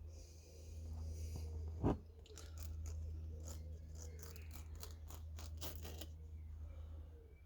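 Hand work with tyre plug-kit tools on the punctured motorbike tyre: a sharp knock about two seconds in, then a run of crunching scrapes and clicks. A steady low hum runs underneath.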